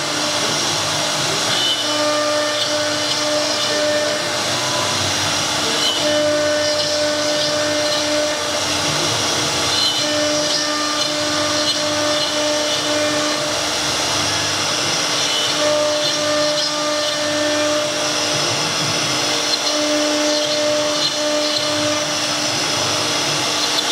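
A 6 kW spindle on a 1325 CNC router cutting MDF board, running steadily: a constant machining hiss with a whine that swells and fades every few seconds.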